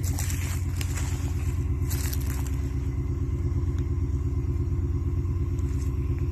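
An engine running steadily: a low, even drone with a fast regular pulse, with a few brief clicks over it.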